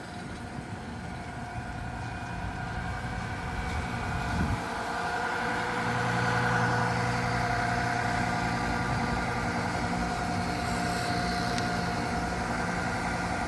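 2014 Carrier Comfort Series heat pump outdoor units running, a steady compressor hum with a held mid-pitched tone that grows louder over the first several seconds and then holds steady.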